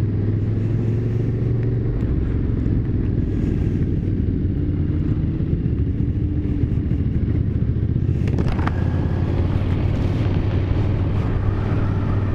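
Aprilia Caponord 1200 Rally's V-twin engine running at a steady cruise, its pitch shifting gently, with wind and road noise. About eight seconds in, the rushing wind noise grows louder.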